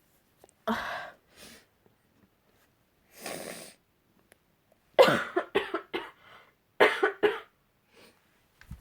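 A person coughing: a single cough about a second in, a breathy intake of air, then two quick fits of several short coughs each in the second half.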